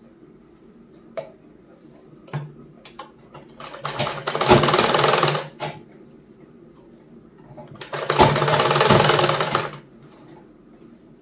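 Old black sewing machine stitching a seam in two runs of about two seconds each, with a few light clicks of the fabric being handled before the first run.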